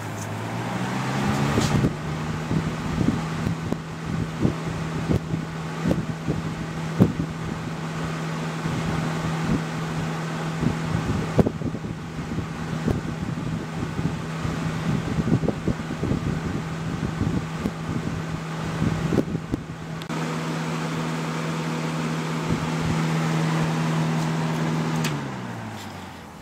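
Lasko model 3723 20-inch box fan switched on. Its hum rises in pitch over the first couple of seconds as it spins up, runs steadily with irregular clicks and rattles, then falls in pitch near the end as it spins down.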